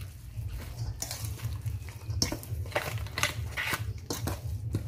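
A wire whisk stirring grated carrots into wet batter in a stainless steel bowl: irregular clinks and scrapes of the wires against the metal, over a low steady hum.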